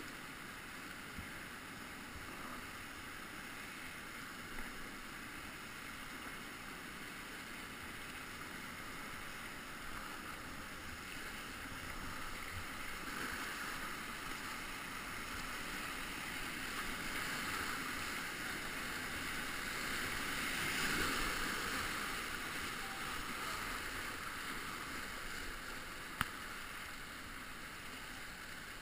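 Rushing whitewater of class III river rapids, a steady wash of water that swells louder about two-thirds of the way through, with a few brief knocks, the sharpest one near the end.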